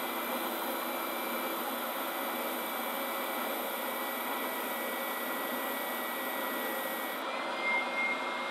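WEN 6524 oscillating belt and spindle sander running steadily, with the sound the owner likens to a shop vac, while a wooden board is pressed hard against its 80-grit spindle sanding sleeve.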